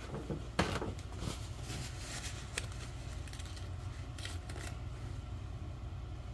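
Light kitchen handling sounds: scattered clicks and knocks as a raw steak is turned over on a metal tray and a spice shaker is picked up, over a steady low hum.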